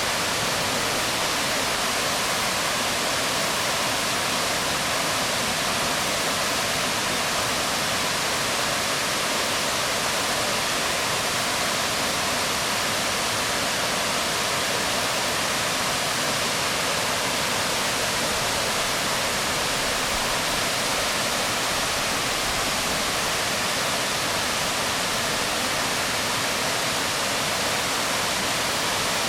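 Waterfall splashing onto rocks: a steady, even rush of falling water that does not change.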